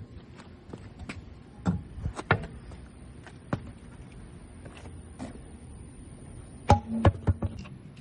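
Scattered metallic knocks and clicks from hand tools and parts during front suspension work on a car: a few sharp hits about two seconds in and a loud cluster of knocks near the end.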